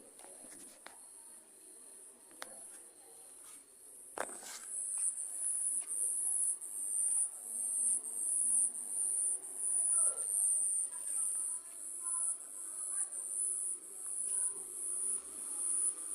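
Crickets singing in a continuous high-pitched chorus that grows louder about four seconds in and swells and fades about once a second. A single sharp click comes just before the chorus rises.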